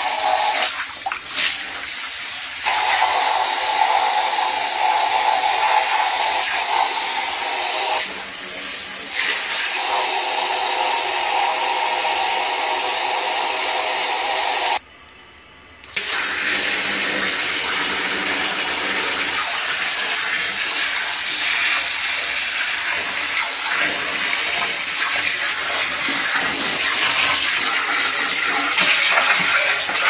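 Water spraying steadily from a hand-held hose nozzle onto plastic vacuum cleaner parts in a sink, splashing as they are rinsed. The spray cuts out for about a second roughly halfway through, then resumes.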